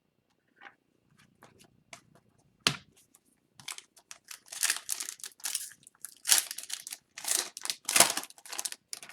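A foil trading-card pack being torn open and its wrapper crinkled, in a run of rustling tears after a single sharp click.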